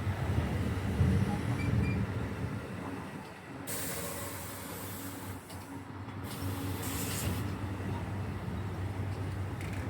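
NJ Transit commuter train rumbling on the rails and fading over the first few seconds. Then two short bursts of hissing air, about four and six and a half seconds in, over a steady low hum.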